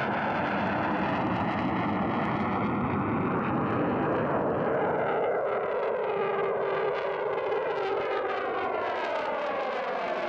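Su-24MR jet passing overhead, its twin AL-21F-3 turbojets giving a steady, dense noise. In the second half a hollow, phasing sweep falls in pitch as it goes by.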